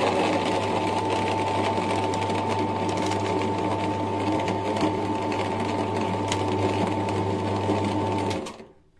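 Electric meat grinder running steadily under load, a constant motor hum with a steady whine, as it extrudes moistened chicken feed mash through its plate into strands. The motor cuts off near the end.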